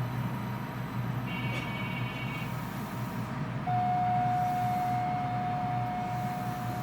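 Kita-Osaka Kyuko 9000 series underfloor running sound, heard from above the Toshiba permanent-magnet synchronous traction motor, with a steady low rumble. A little over halfway through, a steady high whine sets in and the sound gets louder.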